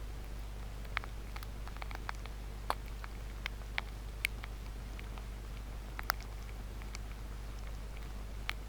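Melting ice crackling: a dozen or so sharp pops and ticks at irregular intervals, over a steady low hum.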